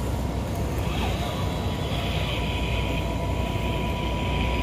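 Radio-controlled car running steadily, its motor and drivetrain giving a constant whine over a low rumble and hiss.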